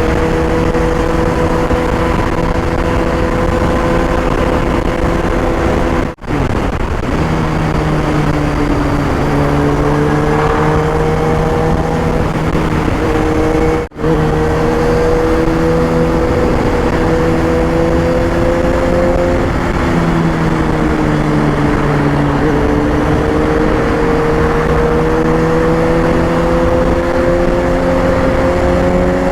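Kawasaki ZX6R inline-four engine running while riding, its pitch slowly climbing under acceleration and dropping back a few times as the revs fall. The sound cuts out for an instant twice.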